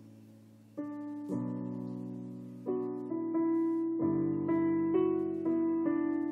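Background piano music: slow, gentle chords and single notes, each struck and left to fade before the next.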